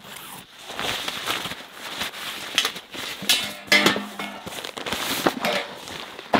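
Backpack being handled: the nylon collar and drawstring top rustling and swishing as they are pulled open, and a tray slid down inside, with small clicks and scrapes throughout and a short rasp about halfway.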